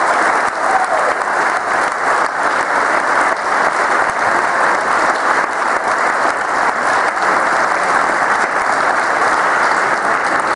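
A large arena crowd applauding: a dense, steady mass of hand claps with no pauses.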